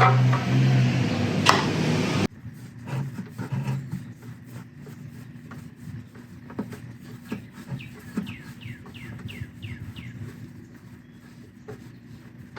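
A loud, steady rushing noise with a low hum that cuts off abruptly about two seconds in. After it comes a quieter outdoor background with a few light knocks, and about eight seconds in a bird calls a quick run of about seven falling chirps.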